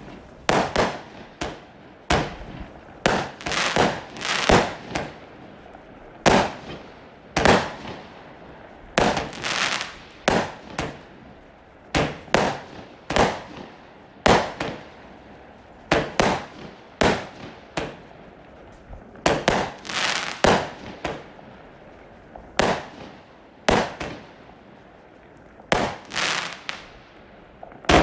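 Lesli Feel The Force 210-shot compound firework cake firing shot after shot: sharp bangs about one or two a second at uneven spacing, each with a short fading tail, with a few brief pauses between runs.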